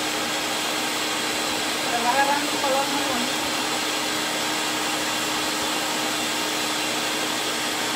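Steady whooshing with a low hum from a kitchen range hood fan running over the stove. Faint talking comes through about two seconds in.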